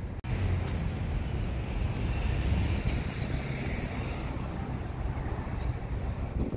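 Strong wind buffeting the phone's microphone as a steady low rumble, over street traffic; the sound cuts out for an instant near the start.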